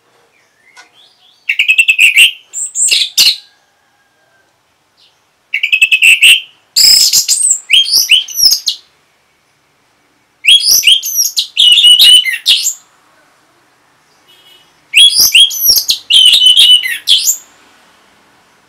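Orange-headed thrush singing in four bursts a few seconds apart. Each burst is a rapid run of varied, whistled and twittering notes lasting about two to three seconds.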